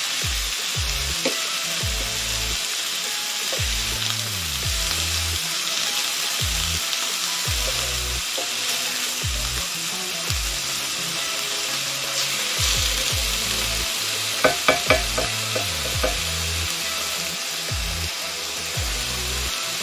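Chicken breasts sizzling as they fry in an enamelled cast-iron skillet, stirred and turned with a utensil. A quick run of three sharp knocks of the utensil against the pan comes a little past two-thirds of the way through.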